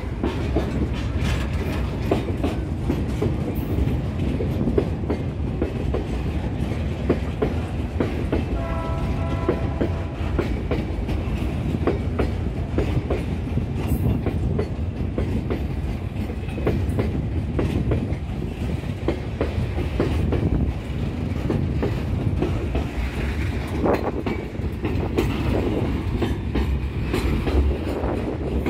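Freight train of covered hopper cars and boxcars rolling past close by: a steady rumble of the cars with the wheels clacking over the rail joints. A brief pitched tone sounds about nine seconds in.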